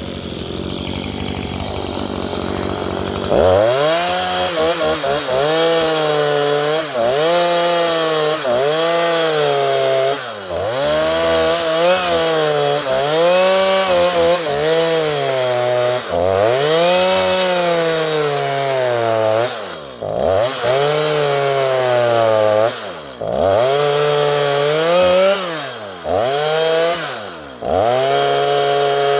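Stihl MS 162 two-stroke chainsaw ripping lengthwise through a thick wooden fence post. It runs lower for the first few seconds, then goes to full throttle. Under full throttle its engine note sags under load and rises again over and over, with short let-offs of the throttle every few seconds.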